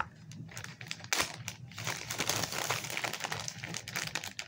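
A clear plastic bag crinkling as it is handled, a dense run of small irregular crackles.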